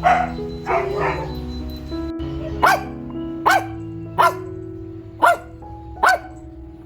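A dog barking: five sharp single barks about a second apart, over steady background music.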